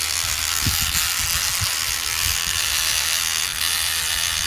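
Battery-powered electric rubber-tapping knife running with a steady whir as its blade shaves bark along the tapping cut of a rubber tree.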